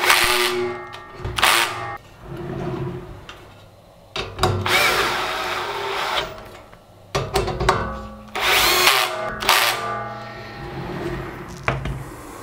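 Cordless drill-driver driving screws down through the top plate of a 3D-printer frame. It runs in about five short runs, the longest in the middle, each starting with a rising whine as the motor spins up.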